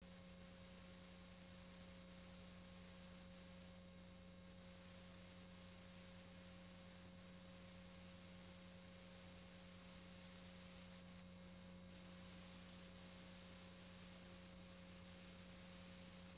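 Near silence: a faint steady hum with a thin hiss from a blank stretch of VHS tape.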